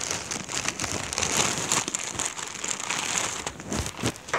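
Rustling and crinkling close to the microphone, with scattered clicks.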